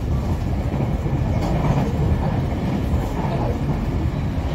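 JR Kyushu 817-series electric multiple unit running between stations, heard from inside the passenger car: a steady rumble of wheels on rail.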